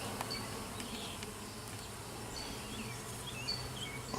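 Honeybees buzzing around an open hive, a steady low hum, with a few short high chirps in the background.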